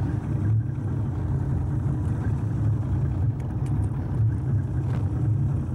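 Boat's outboard motor running steadily at low trolling speed, a constant low drone, with a few faint clicks over it.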